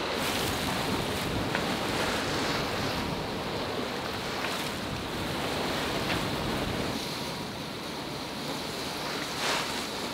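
Wind buffeting the microphone over the steady rush of sea water past a moving sailboat, with a few brief splashes.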